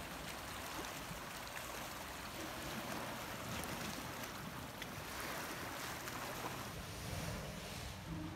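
Calm sea with small waves lapping and washing against shore rocks, a wave swelling up about five seconds in, over a low steady rumble.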